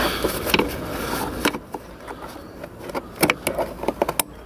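Hands handling rubber heater hoses and plastic hose couplers in a Mk1 Audi TT's engine bay: a rustling scrape, then a scatter of light clicks and knocks as the parts are pushed and shifted.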